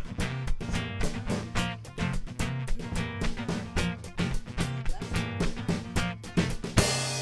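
Guitar and percussion playing an instrumental song ending: busy, rhythmic strummed chords and drum hits. Near the end a final accented hit lands, and the chord and a cymbal wash are left ringing and fading.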